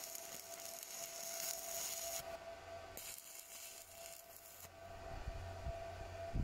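Stick (arc) welder tack-welding steel: two bursts of arc hiss, the first about two seconds long and the second starting about three seconds in and lasting under two seconds, with a steady faint tone underneath.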